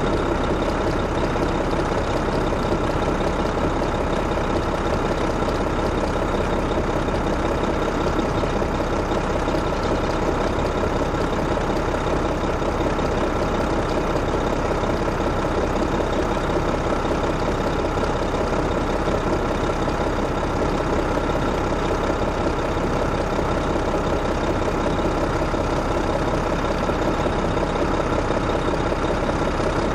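Detroit Diesel Series 60 inline-six diesel engine of an MCI D4500 coach running steadily, holding one unchanging note.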